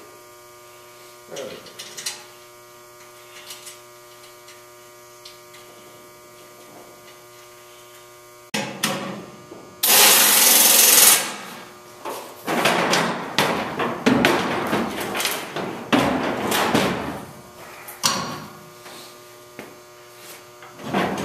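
Steady electrical hum for the first eight seconds or so. About ten seconds in, a loud, even rush of air-tool noise lasting over a second. After that, steel engine-hoist parts clank and knock irregularly against each other and the truck's tailgate as they are handled.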